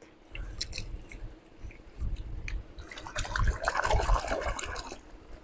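Blue toy dump truck being unloaded: small plastic clicks and knocks, then a trickling pour about three seconds in as its load spills out.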